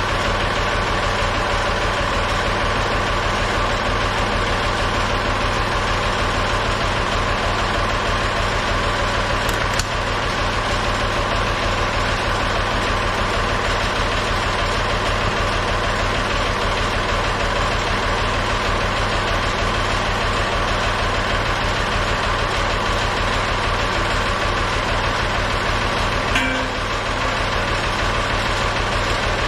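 Tractor engine idling steadily, with a brief knock near the end.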